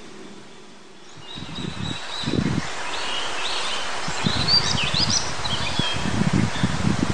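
Male Daurian redstart singing short phrases of quick high notes and slurred whistles, starting about a second in. Under it is a steady rush of wind and stream water, with irregular wind gusts rumbling on the microphone.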